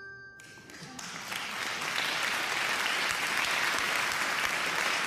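The last ringing note of a bell-like Christmas tune fades out, then applause swells up from about a second in and goes on steadily.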